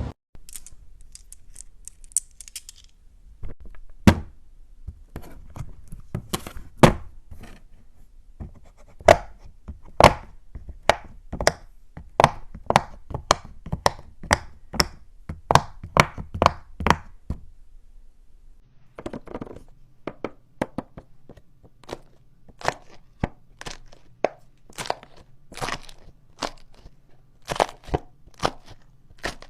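Silicone pop-it fidget toy bubbles being pressed one after another, a run of sharp irregular pops about one or two a second. A low steady hum comes in about two-thirds of the way through.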